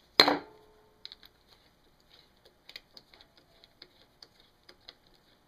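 A sharp metal clink with a brief ring, then a string of light clicks, about two or three a second, as hand tools work the timing advancer off the camshaft of a Honda ATC110 engine.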